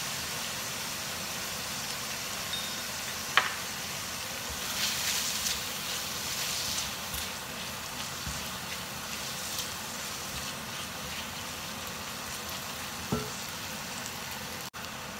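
Rawon spice paste sizzling in a nonstick wok as it is stirred with a silicone spatula, a steady hiss with two sharp knocks, one about three seconds in and one near the end.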